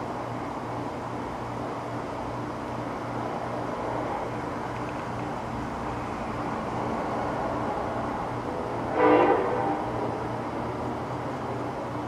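A vehicle air horn sounds one short, loud blast about nine seconds in, over a steady background hum.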